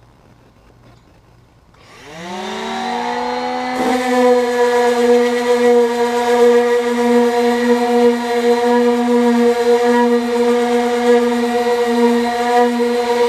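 Power tool motor starting about two seconds in, winding up in pitch to full speed, then running steadily at a high, even whine.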